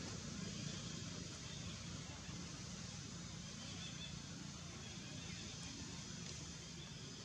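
Steady outdoor background noise: a low, even hum under a faint hiss, with no distinct calls or knocks.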